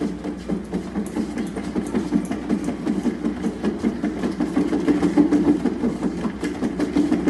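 Large cat exercise wheel spinning on its base rollers as a cat runs inside it: a continuous low rumble with a fast flutter and faint ticks.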